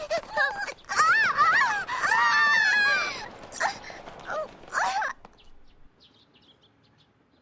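Two cartoon girls screaming and wailing as they tumble down a flight of stone stairs, with knocks from the fall. The screaming stops about five seconds in, leaving only faint bird chirps.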